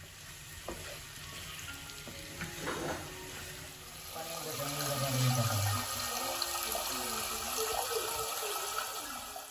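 Water running from a kitchen tap and splashing into a steel pan, getting louder about four seconds in.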